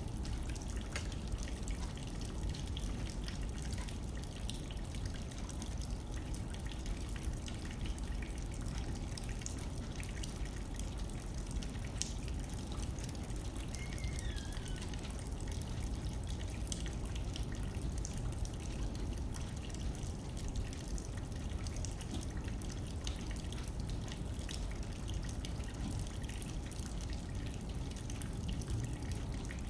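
Rain hitting a window: a steady patter of many separate drop ticks over a low wind rumble.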